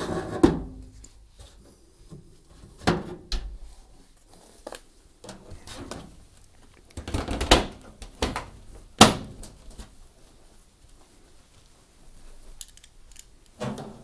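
Hotpoint washing machine's rear panel and top lid being fitted back on: a series of separate knocks and clunks as the panels seat, with lighter clicks and handling noise between.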